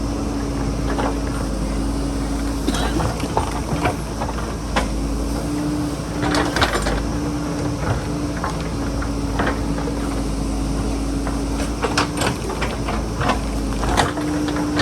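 JCB backhoe loader's diesel engine running steadily with a held hum, under repeated sharp knocks and clatters of digging into rock and soil.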